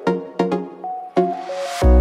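Future bass electronic music: synth chords punctuated by sharp percussive hits, then a rising noise sweep leading into a heavy deep bass that comes in near the end.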